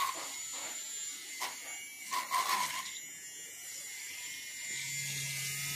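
Handheld battery milk frother whirring, its wire whisk spinning in frothy coffee in a steel bowl: a steady thin high motor whine, with a deeper steady hum joining near the end.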